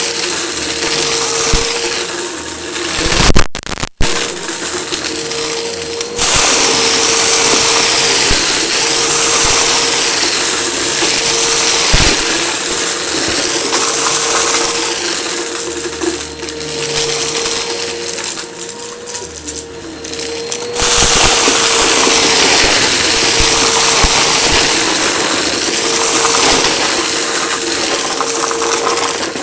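Eureka vacuum cleaner running with a steady motor whine and airflow rush, debris crackling and rattling as it is sucked up. The rush drops off briefly about four seconds in and again for a few seconds past the middle.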